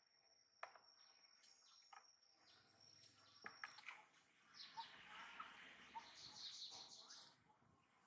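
Faint outdoor ambience of birds chirping. A steady high-pitched insect whine runs for the first few seconds and stops suddenly, and past the middle comes a rapid run of short high chirps.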